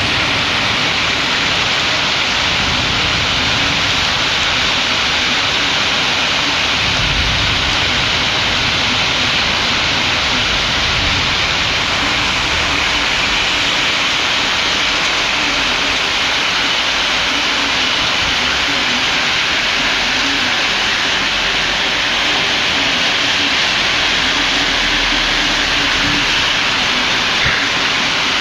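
Torrential cloudburst rain pouring down in a steady, loud hiss, with wind gusts adding a low rumble now and then, most strongly about seven seconds in.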